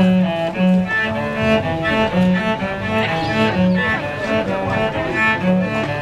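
Solo cello bowed in a flowing melody of separate notes, with a lower note recurring about once a second beneath it.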